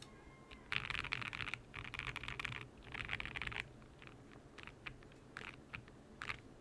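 GMK67 mechanical keyboard with lubed and filmed Gateron Box Ink Pink linear switches being typed on. Three quick runs of rapid keystrokes are followed by a handful of single key presses, spaced out and tapering off.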